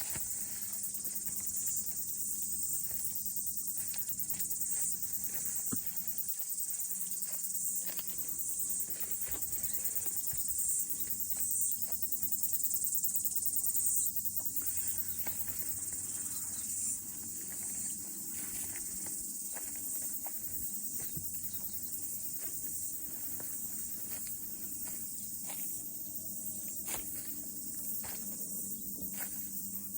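Chorus of cicadas: a steady high-pitched shrill drone that eases slightly about halfway through.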